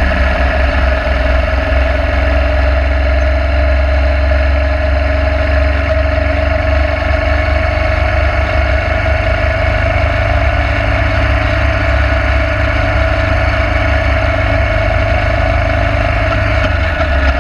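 Motorcycle engine running at a steady cruise with wind and road noise from riding; the deep rumble eases slightly near the end.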